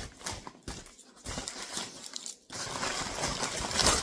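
A brown paper bag crinkling and rustling as hands dig into it and lift out onions, in several spells with short pauses, loudest near the end.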